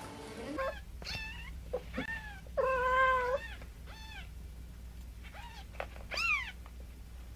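Cat meowing, a run of about eight short, arching meows with one longer, held meow about three seconds in.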